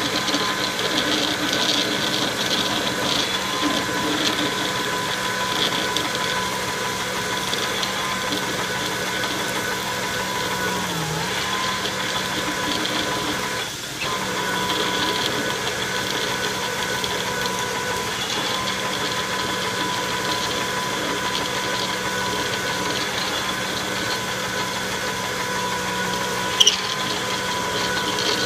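Logan metal lathe running steadily with a constant whine, dipping briefly about halfway through. A single sharp click comes near the end.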